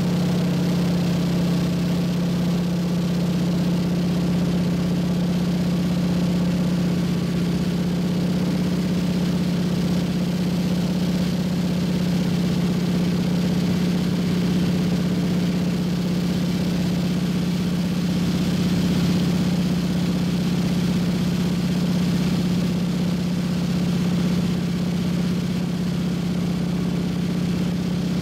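Single-engine float plane's engine and propeller droning steadily, heard from inside the cabin in flight.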